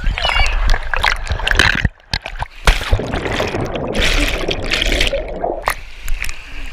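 Water rushing and splashing down a water slide, then a plunge into the pool: churning, bubbling water loudest in the middle, followed by lighter splashing as it breaks the surface near the end.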